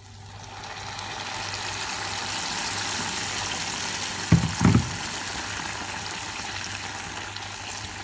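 Boiling water poured into a pot of rice fried in ghee and oil, hissing and sizzling as it hits the hot fat. The sound builds over the first second or two, then the pot bubbles steadily. Two dull knocks come about four and a half seconds in.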